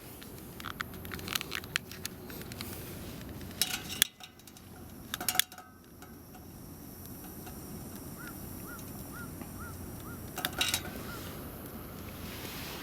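Scattered sharp clinks and crackles in a few clusters, some ringing briefly like metal, over a steady low background noise. In the second half comes a run of about seven short high chirps, evenly spaced.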